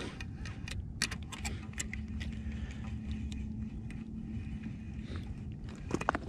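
Spinning reel being cranked to bring up a hooked white bass: a faint steady whir from the reel with scattered light clicks, over a low rumble.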